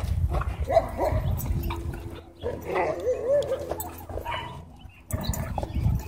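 A dog barking in short repeated bursts, with a brief wavering whine about three seconds in.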